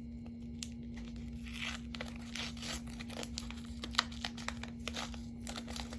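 Crinkling and crackling of a plastic fishing-hook package being handled, with scattered small clicks as a fingernail picks at a stubborn sticker stuck to it. A steady low hum runs underneath.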